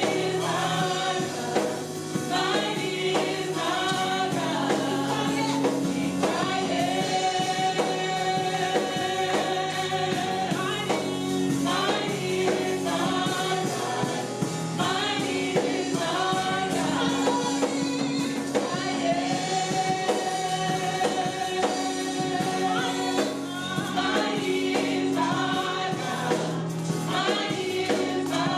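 Gospel choir and congregation singing a worship song with keyboard and bass accompaniment.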